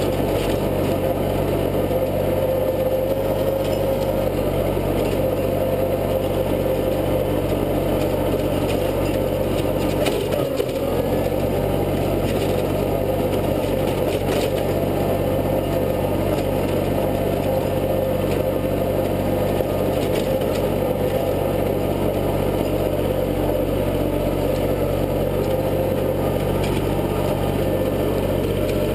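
International tractor engine running steadily under load, driving a PTO rotary tiller that churns soil, with a brief dip in engine pitch about ten seconds in.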